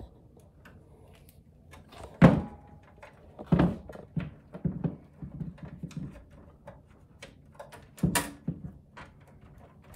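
Knocks and clicks on a metal breaker-panel enclosure as a whole-house surge protector's leads and threaded nipple are fed through a knockout. The loudest thunk comes about two seconds in, with lighter clicks after it and another strong knock near the end.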